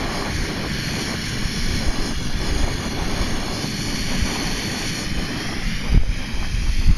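Wind buffeting an exposed microphone, with the steady hiss of a backpacking stove burning under a lidded titanium pot of water nearly at the boil. Two short low knocks come near the end.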